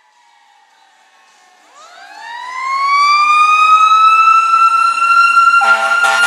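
Fire engine siren winding up from low to a steady high wail about two seconds in, after a faint falling tail at the start. Near the end, the engine's air horn starts sounding in short blasts over the siren.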